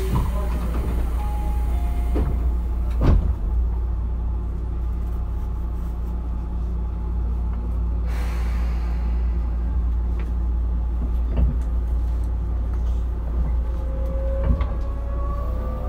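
Standing Tobu 9050-series electric train car humming steadily from its on-board equipment while waiting at a station, with a few knocks and a brief hiss about eight seconds in. Near the end an electric train's inverter whine sets in, rising in pitch.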